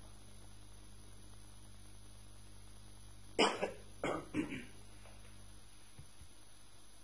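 Someone coughing three times in quick succession, about halfway through, over a faint steady electrical hum.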